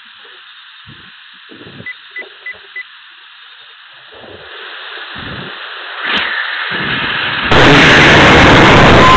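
Four short electronic beeps about two seconds in, then a rushing hiss builds from about four seconds. A click comes near six seconds, and at about seven and a half seconds the Skyripper K347 hybrid rocket motor ignites at full thrust with a sudden, very loud steady roar as the rocket leaves the pad.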